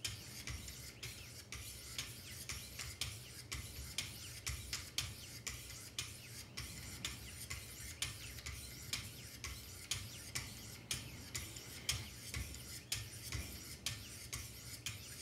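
Lapping-film paddles of a Wicked Edge guided sharpener being stroked along a steel knife edge: a quick, even run of short scraping strokes, about two to three a second.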